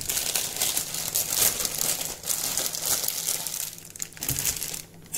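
Crinkling and rustling of plastic being handled, busy and irregular for about four seconds, then dying down.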